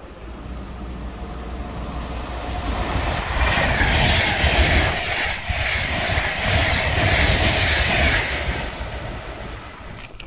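A train passing through the station at speed on the adjacent track. Its rush of wheels on rail swells over the first few seconds and peaks with a quick regular run of clicks as the wheels cross the rail joints, then fades away near the end.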